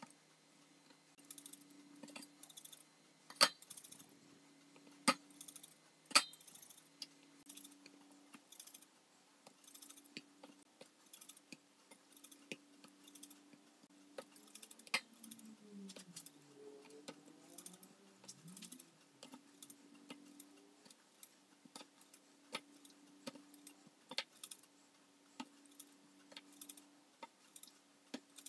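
Scattered light clicks and taps of steel plates and a ceramic platter being handled as sweets are moved between them, with a few sharper knocks in the first several seconds.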